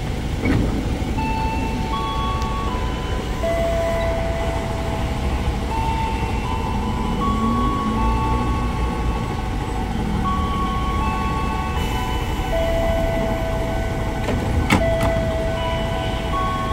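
An electronic melody of held tones, one note after another, plays over the platform speakers, the kind of departure melody played while a commuter train stands with its doors open. A sharp clack comes near the end, about when the train's doors shut.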